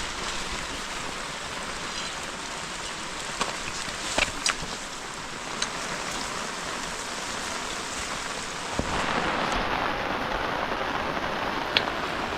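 Heavy rain falling steadily, with a few sharp taps of single drops hitting a surface close by. The rain gets louder about nine seconds in.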